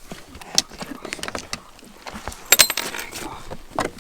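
Fishing gear clattering and clinking as a pike is landed and handled in a boat: a string of sharp metallic clicks and knocks, with the busiest, loudest jangle about two and a half seconds in.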